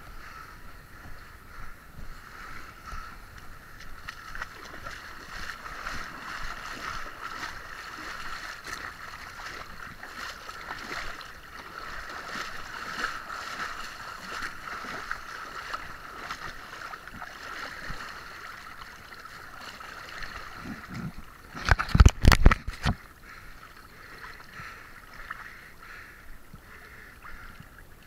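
Shallow sea water sloshing and splashing around a person's legs as they wade out, over a steady hiss of lapping water. About three-quarters of the way through comes a short, loud cluster of splashes and knocks.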